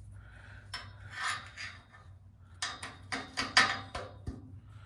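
A bent 3/8-16 steel bolt scraping and clicking against a welded-in steel sleeve as it is pushed into it: short rasps of metal rubbing on metal, then a run of ticks, loudest about three and a half seconds in. Being bent, the bolt binds and won't slide all the way through.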